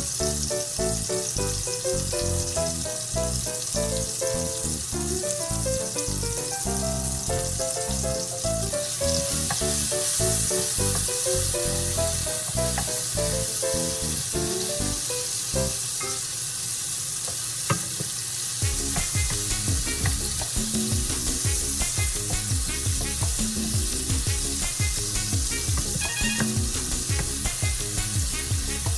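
Food frying in hot oil in a frying pan, a steady sizzle that swells through the middle, with background music: a melody for the first half, then a steady beat.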